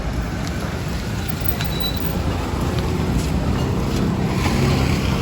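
Steady rumble of road traffic and vehicles, with a few faint clicks.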